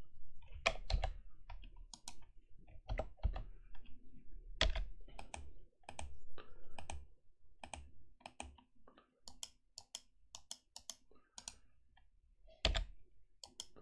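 Computer keyboard keys and mouse buttons being pressed: an irregular string of sharp clicks, often several a second.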